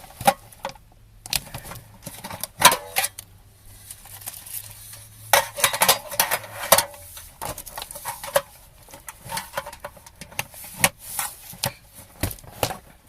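Crinkling and clicking of cellophane candy wrappers as individually wrapped chocolates are handled and unwrapped, in irregular bursts.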